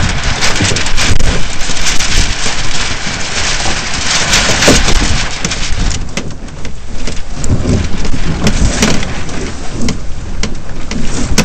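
Loud, uneven rush of wind on a deck-mounted microphone mixed with water rushing and splashing along the hull of a Flying Dutchman dinghy under sail.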